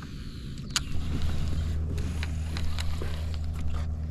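Electric kayak motor starting about a second in, just after a sharp click, then running with a steady low hum. A few light ticks and knocks sound over it.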